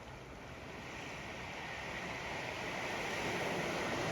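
Ocean waves washing up on the sand, the surf noise swelling steadily as a wave comes in, with some wind on the microphone.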